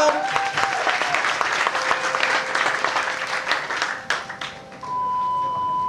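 Audience applauding, dying away about four seconds in. A steady high electronic tone then starts near the end.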